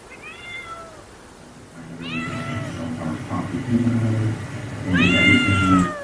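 A cat meowing three times, each call rising and then falling in pitch; the first is soft and the last is the loudest. A low, steady drone runs underneath from about two seconds in and stops with the last meow.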